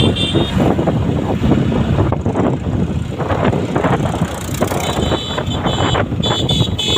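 Riding on a Hero Splendor+ 100 cc motorcycle: steady engine running and wind noise on the microphone. Bursts of high-pitched beeping sound at the start and again from about five seconds in.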